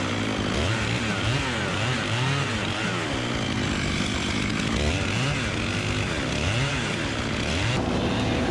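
Gasoline chainsaw engine revving up and down over and over, about once a second. Near the end it gives way to a steadier engine note.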